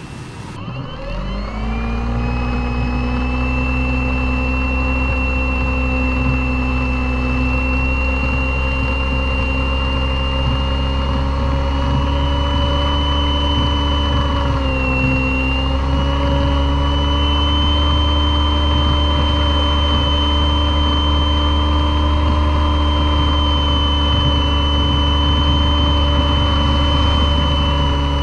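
Electric motor and propeller of an RC airboat, heard from a camera mounted on board. The motor spins up with a rising whine about a second in, then runs at a steady high-pitched whine, with a brief dip in pitch about halfway through.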